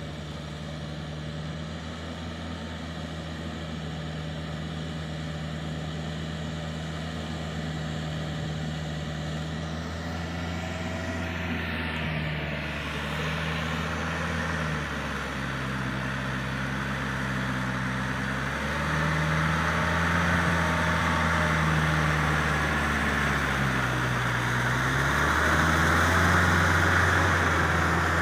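Yanmar EF494 tractor's diesel engine running under load while tilling a flooded rice paddy, growing steadily louder as it approaches. Its pitch dips and recovers a few times in the second half, and a hiss builds up near the end.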